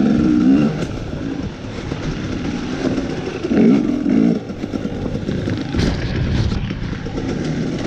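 KTM 250 dirt bike engine revving hard and easing off, its pitch climbing at the start and again about three and a half seconds in, with a rough rattle from the bike over the ground. A short cluster of sharp knocks comes about six seconds in.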